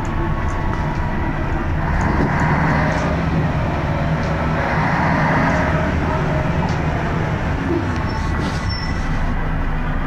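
Scania K113CRB bus's rear-mounted 11-litre straight-six diesel running under way, heard from inside the saloon as a steady drone. It grows louder twice in the middle as the engine works harder, with a few faint rattling clicks.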